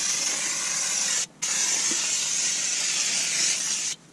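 Aerosol can of engine degreaser spraying in long hisses, nearly empty, with a short break about a second in and stopping just before the end.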